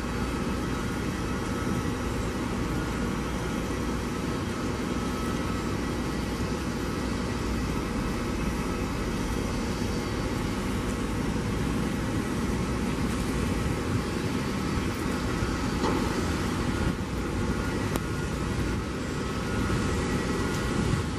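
Airbus A321neo's jet engines running at low taxi power: a steady rumble and hiss with a faint steady whine above it.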